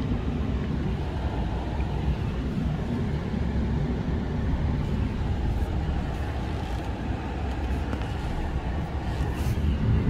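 Ram pickup truck running at low speed, heard from inside the cab as a steady low rumble.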